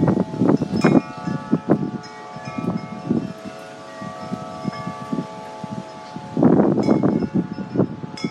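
Wind chimes ringing, several struck notes overlapping and ringing on. Gusts of wind buffet the microphone at the start and again about six and a half seconds in.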